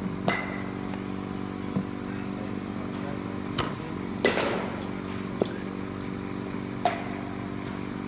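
Baseball batting practice: sharp knocks of the bat on the ball and of balls hitting the cage, several in a row, the loudest two about three and a half and four seconds in. Under them runs a steady mechanical hum.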